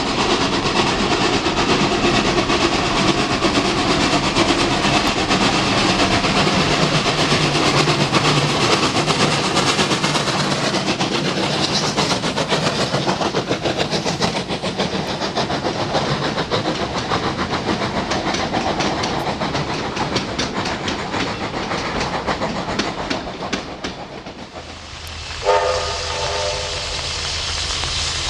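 A steam-hauled train passing at speed, its running noise giving way to a long run of steady wheel clicks over the rail joints as the carriages go by, then fading away. Near the end a steam whistle gives a short blast of several notes at once.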